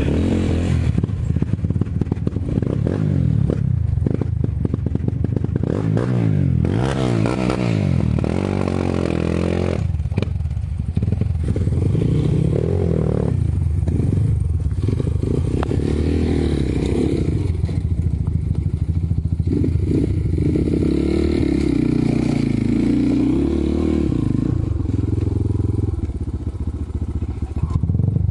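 Off-road dirt bike engines revving up and down again and again as the bikes climb steep rock.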